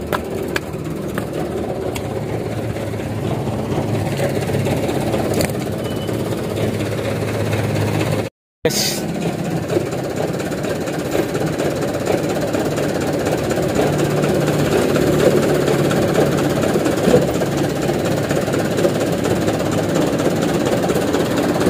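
Light truck's diesel engine running steadily, with a brief sudden dropout about eight seconds in.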